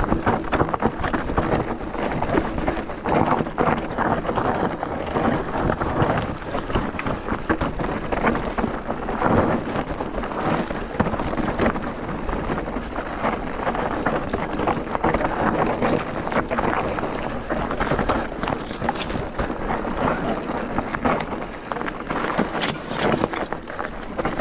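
E-bike being ridden over a rough trail: continuous irregular rattling and crunching of tyres and bike over stones and loose ground.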